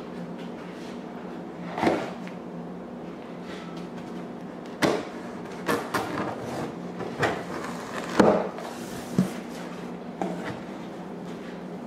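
A knife slitting packing tape on a large cardboard box, then the cardboard flaps being pulled open: a series of short scrapes, rips and knocks, loudest about eight seconds in. A steady low hum runs underneath.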